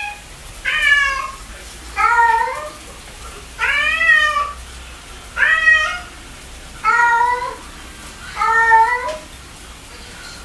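Domestic cat meowing six times in a row, evenly spaced about a second and a half apart, each meow rising then falling in pitch.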